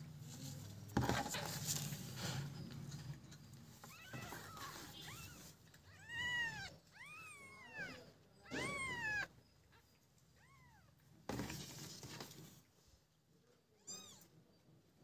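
Newborn kittens mewing: about eight short, high-pitched mews, each rising then falling in pitch, the loudest a little past the middle. Two stretches of rustling noise, near the start and again near the end.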